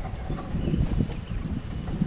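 Wind buffeting the microphone in uneven gusts, a low rush.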